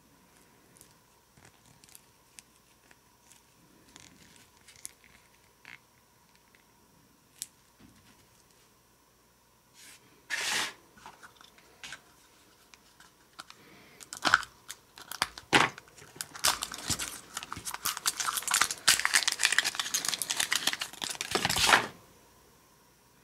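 Light clicks of small plastic toys being handled, then about halfway a short rustle and, for the last third, dense crinkling and tearing of a plastic wrapper as a Mashems toy capsule is opened. The crinkling is loudest near the end and stops abruptly.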